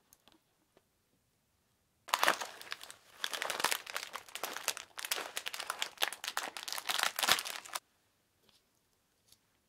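Small clear plastic packet of roasted soybeans crinkling as it is handled, starting about two seconds in and stopping abruptly a couple of seconds before the end.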